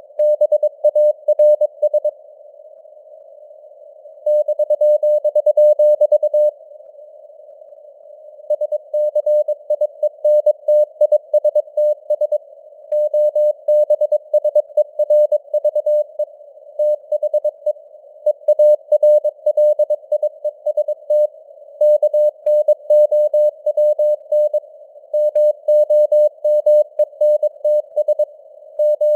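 Morse code (CW) at 22 words per minute: a single steady tone keyed on and off in rapid dots and dashes, over a narrow band of simulated radio hiss. Sending pauses briefly about two seconds in and again about six and a half seconds in, then runs on steadily.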